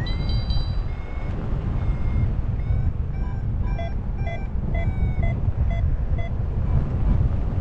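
Paragliding variometer beeping: a few short rising chirps, then from about three seconds in a run of short beeps about two a second, the vario's climb tone that signals rising air. Wind rushes steadily on the microphone throughout.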